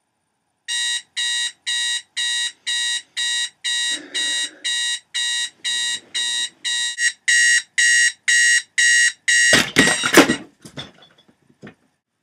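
Electronic alarm clock beeping about twice a second, a sleeper's wake-up alarm, getting louder about two-thirds in. It then stops under a loud clatter of knocks, followed by a few lighter knocks.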